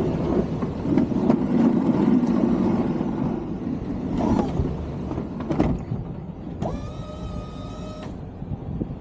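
Snow-plow truck running, with scattered clunks and a loud low rumble through the first half. Near the end a steady electric motor whine lasts about a second and a half.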